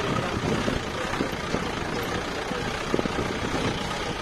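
Off-road jeep's engine running as it drives slowly over a rough stone and dirt track, with a steady engine note and irregular knocks from the ground.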